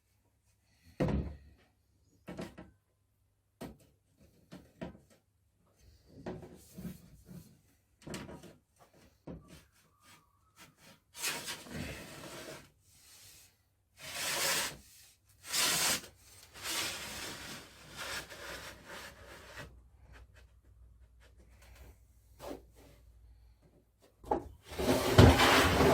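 A panel of a felting machine's fulling drum being slid into place along its ball-and-C-hook joint: scattered light knocks and clicks, then several longer sliding scrapes, the loudest near the end.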